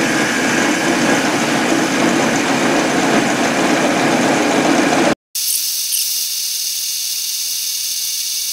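Small metal lathe running under power, turning a metal shaft while the tool takes a light cut at its end. About five seconds in the sound drops out for an instant and comes back as a thinner, high-pitched whine.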